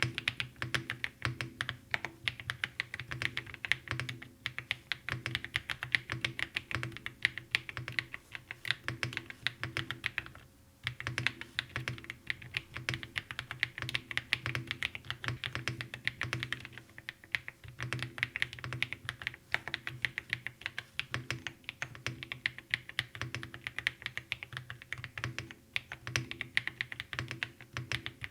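Fast continuous typing on a Monstar Gear Gatts X500 Pro 100-key keyboard: a dense run of key clacks, with one brief pause about ten seconds in.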